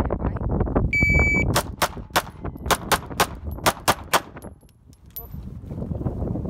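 A shot timer beeps once, then a 9mm Glock 43 pistol fires a fast string of about ten shots at steel targets. High pings of struck steel ring after some of the shots, and the string stops about five seconds in.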